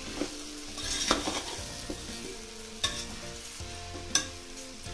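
A steel spatula stirring a thick chana and potato masala in a pressure cooker while the masala sizzles, with sharp scrapes and knocks against the pot three times: about one, three and four seconds in.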